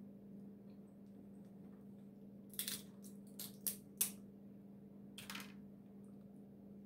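Cooked crab shell cracking and snapping in the hands as it is picked apart: a quick run of four or five sharp cracks a few seconds in, then one more a second later. A steady low hum underneath.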